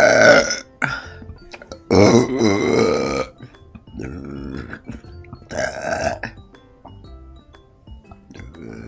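A person burping several times after drinking fizzy pop: a loud short burp at the start, a long drawn-out one about two seconds in, and two weaker ones near the middle.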